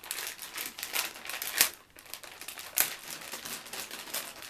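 Plastic packaging crinkling and rustling as gear is handled, with a sharp snap about a second and a half in and another near three seconds.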